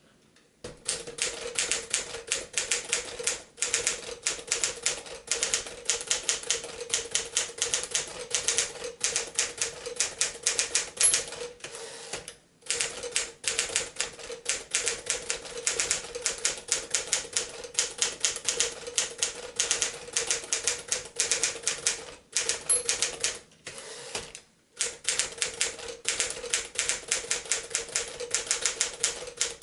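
1950 Smith-Corona 5-Series Silent manual typewriter being typed on at a quick, steady pace: a rapid run of key strikes broken by a few short pauses every several seconds.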